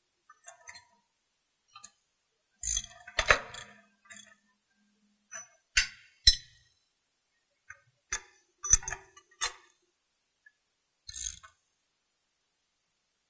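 Scattered metallic clicks and clinks of a wrench working the steel nuts and cross-connection bolts of a NUVALOY pipe expansion joint as they are tightened. The strikes come irregularly, with the thickest clusters about three seconds in and about nine seconds in.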